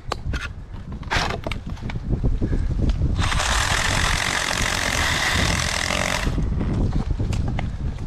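Milwaukee Hatchet battery pruning saw running for about three seconds, starting and stopping abruptly a little after three seconds in, over steady wind noise on the microphone. A few sharp clicks of climbing gear come before it.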